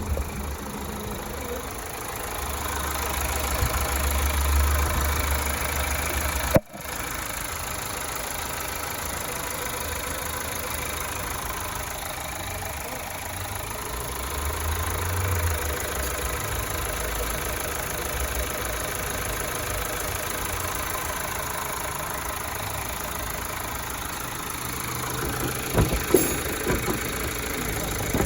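Car engine idling steadily. The sound drops out abruptly for a moment about six and a half seconds in, and a few short knocks come near the end.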